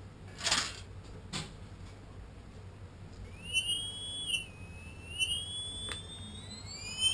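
Brushless drone motor sold as a Tarot 4006 spinning up: two brief handling knocks, then about three seconds in a high whine starts, rises and wavers with the throttle, and climbs steeply near the end. The owner puts the high-pitched sound down to bad bearings, probably.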